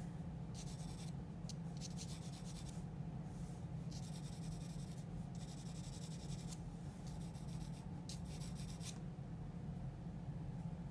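Graphite pencil scratching across drawing paper in a series of short shading strokes, each run lasting up to about a second and a half with brief pauses between, over a steady low hum.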